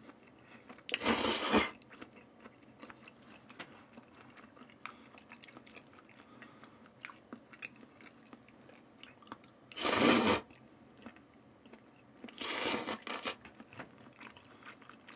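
Close-up eating sounds of raw salmon strips cut like noodles: three loud slurps, the first about a second in and the others around ten and thirteen seconds, with quiet chewing and small wet mouth clicks between them.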